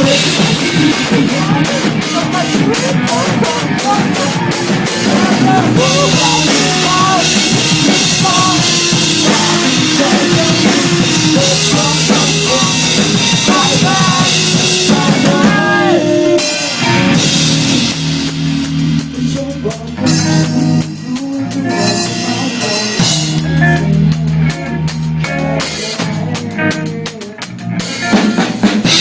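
Rock band playing live, with the drum kit to the fore. The playing grows sparser a little past halfway.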